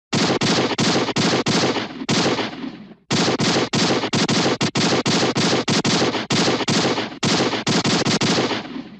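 Gun firing rapid, evenly spaced shots, about four a second, in two long strings with a brief break about three seconds in.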